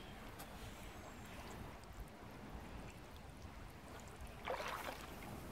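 Faint trickling and lapping of canal water as a magnet on a rope is hauled in through it, with a slightly louder short splash about four and a half seconds in.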